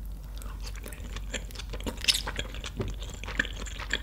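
Close-miked chewing of a mouthful of raw beef sashimi wrapped with a slice of cheese, with many small irregular clicks and mouth sounds.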